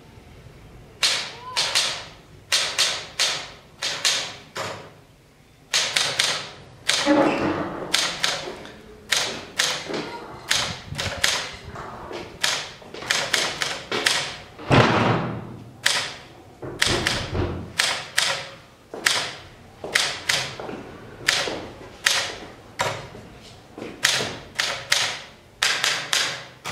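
Portable manual typewriter being typed on: sharp key strikes in quick runs, with short pauses between the runs.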